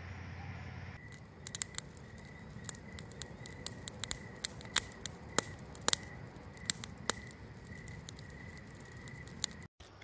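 Wood campfire in a metal fire ring crackling, with sharp irregular pops starting about a second in, over a faint steady high tone.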